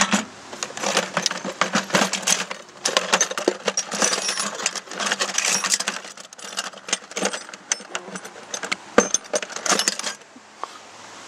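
Hand rummaging through a plastic bucket of loose metal hardware and tools, with irregular clinks and rattles that stop about ten seconds in.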